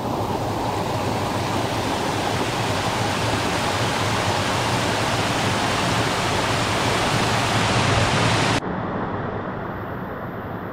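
Waterfall's water rushing steadily. About eight and a half seconds in it cuts abruptly to a duller, slightly quieter rush.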